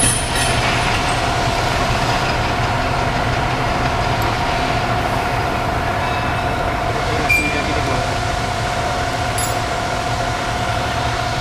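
Metal lathe running steadily, with a constant low hum and a steady whine, and a few light clicks over it.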